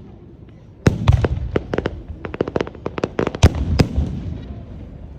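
Aerial fireworks bursting: a loud bang about a second in, then a rapid string of sharp cracks and pops, thinning out near the end.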